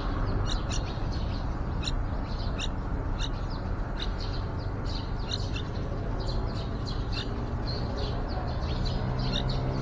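Birds chirping: many short, high chirps, several a second, over a steady low background rumble. Near the end a low engine hum comes in.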